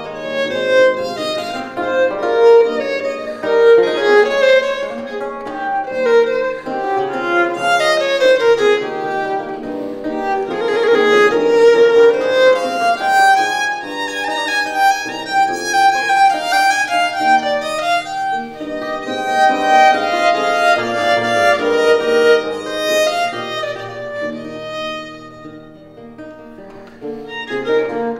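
Violin and Baroque lute playing a duet: a bowed violin melody over a plucked lute accompaniment. The music grows quieter for a few seconds near the end, then swells again.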